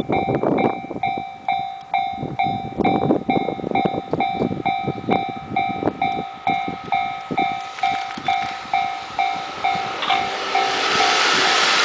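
Level-crossing warning bell ringing steadily at about two strikes a second while a train hauled by an EF81 electric locomotive passes, its wheels knocking irregularly over the rail joints. About ten seconds in, a loud rushing noise of the passing train swells up.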